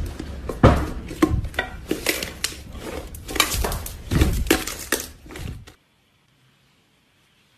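Hands squeezing and tearing apart thick sprinkle-covered slime, giving a dense run of sticky crackling and popping clicks. The sound cuts off suddenly about six seconds in, leaving near silence.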